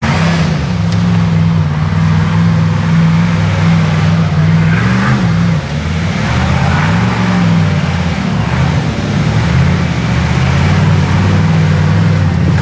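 Rock-race buggy's engine pulling under load up a rutted dirt climb, its revs rising and falling a few times as the driver works the throttle.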